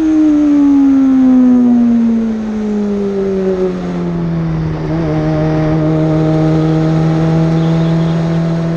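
Osella PA21 JRB racing prototype's BMW engine heard from the cockpit, its revs falling steadily for about four seconds, then holding at a steady low speed.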